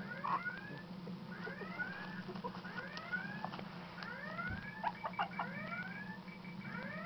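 Young puppy squeaking in short rising-and-falling cries, about one a second, over a steady low hum.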